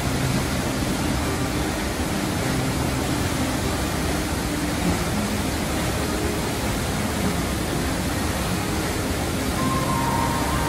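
Large waterfall on a glacier-fed river pouring heavily into a rock canyon: a loud, steady rush of water.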